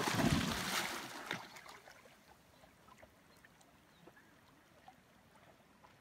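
A dog jumping into a lake with a loud splash that fades over about a second and a half, followed by faint, scattered water sounds as it swims out to fetch a toy.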